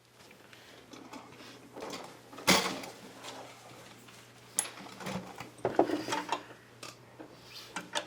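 Scattered knocks, clicks and clatters, loudest as one sharp knock about two and a half seconds in and a cluster of knocks around six seconds in, over a steady low hum.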